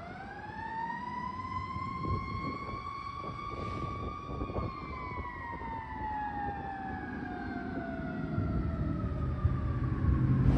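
Fire engine siren: a single slow wail that rises in pitch over the first four seconds or so, then winds down in a long fall, over the low rumble of the truck and road noise.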